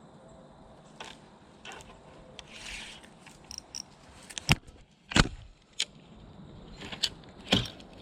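Fishing reel and tackle being handled: a series of sharp clicks and knocks, the loudest around the middle and near the end, with a brief rustle about three seconds in.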